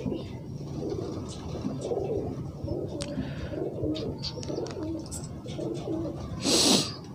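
Domestic pigeons cooing repeatedly, with a brief loud flutter of wings near the end.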